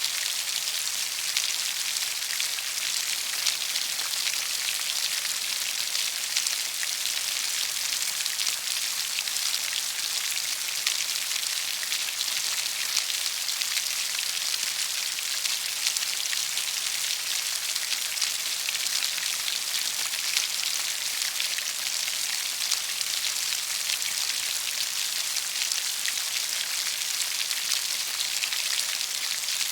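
Steady rainfall: an even, bright hiss of many drops, with scattered sharper ticks of individual drops landing close by.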